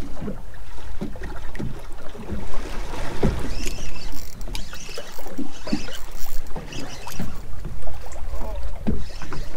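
Water slapping and lapping against the hull of a drifting boat in irregular splashes over a steady low rumble.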